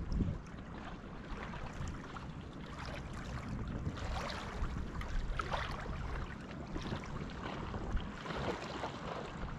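Wind gusting on the microphone over small waves lapping at a pebble lakeshore.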